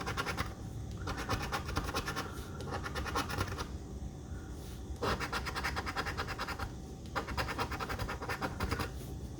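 Scratching the latex coating off an instant lottery ticket: quick back-and-forth scraping strokes in runs of a second or two, with short pauses between them.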